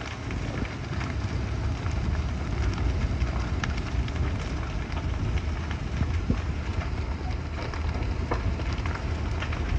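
Large wooden barn fire burning fully involved: a steady rushing noise with a deep low rumble and frequent sharp crackles and pops.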